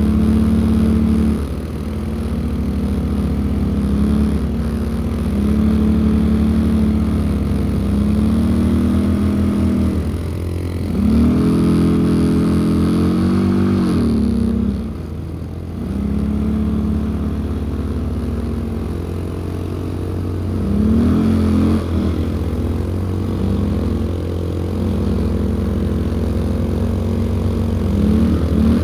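ATV engine running under way, its revs rising and falling several times with the throttle, with a brief easing off about fifteen seconds in.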